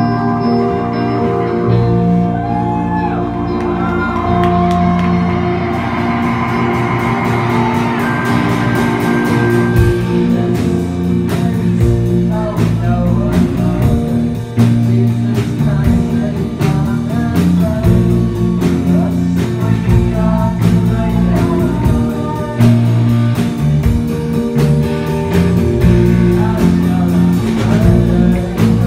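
Live rock band playing through a club PA: electric guitar and bass sustain over the first few seconds, then the drum kit comes in with steady cymbal and drum hits about six seconds in, and the full band plays on.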